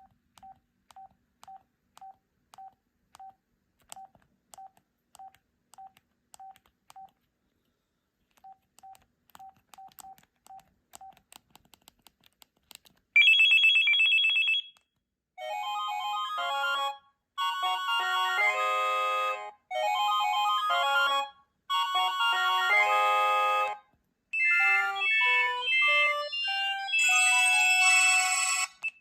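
Sanyo SCP-8100 cell phone's built-in ringtones: a slow run of short single beeps, then a loud high trilling ring about halfway through, then a string of short electronic ringtone melodies, each a couple of seconds long and cut off before the next begins.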